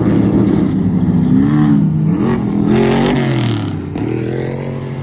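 Off-road race truck engine revving hard as it goes by, its pitch rising and falling twice and then dropping away, with a rush of noise about three seconds in.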